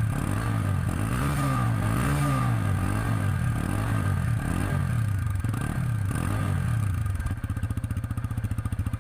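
TVS Apache RTR 160 2V single-cylinder engine through its stock exhaust, revved in short throttle blips about once a second, then settling to a steady, evenly pulsing idle about seven seconds in.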